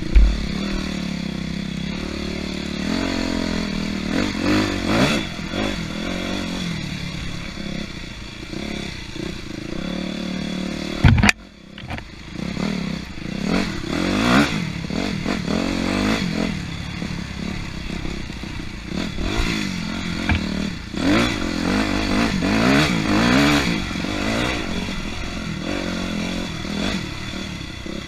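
250cc dirt bike engine revving up and down as the bike is ridden hard over rough off-road trail, with rattling and clattering from the bike. About eleven seconds in there is a sharp loud knock, then the engine noise drops off for a moment before picking up again.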